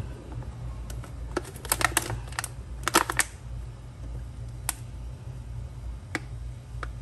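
Thin plastic water bottle, used as a makeshift funnel in the oil filler, crackling and clicking as it is handled and pushed into place: a quick cluster of sharp clicks between about one and a half and three seconds in, then a few single clicks. A steady low hum runs underneath.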